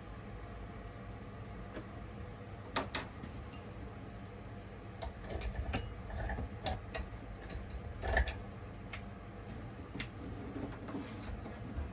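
Scattered clicks and knocks of chainsaw parts being handled and fitted together during assembly, over a steady low hum.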